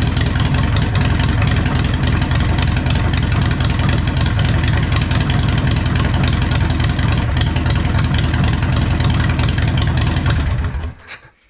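Harley-Davidson Sportster V-twin, rebuilt with a 1275 big-bore kit, running steadily on one of its first break-in heat cycles, then shut off about eleven seconds in.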